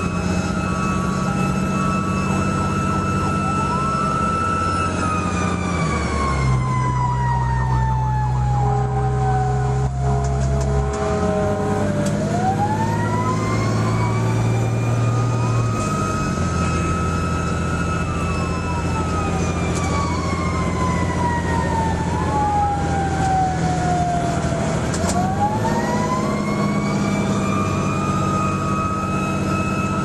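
Fire truck's siren wailing, heard from inside the cab: the tone holds high, falls slowly over about seven seconds, climbs back up within a few seconds, holds, then falls and climbs once more near the end. Under it runs the steady drone of the truck's engine.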